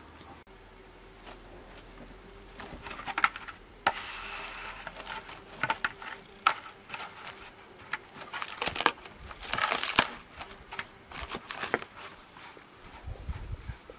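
Plastic cling film being pulled off its roll and stretched over a plastic bowl of dough. It crinkles and crackles in irregular bursts and is loudest a little past the middle.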